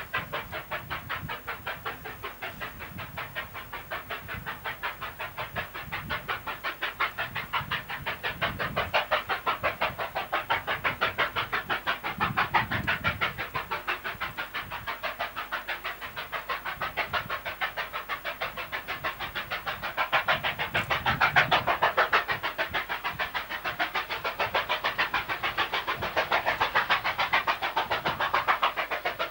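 NSW C38-class steam locomotive 3801 working hard, its exhaust beating out a rapid, even chuff, growing louder about two-thirds of the way through.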